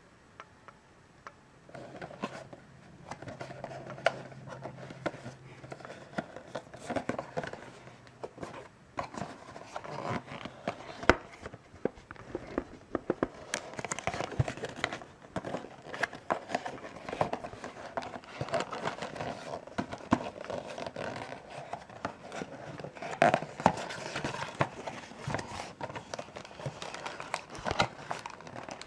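Cardboard box and its paper insert handled and opened by hand: rustling, scraping and many sharp clicks of folding card, starting about a second and a half in.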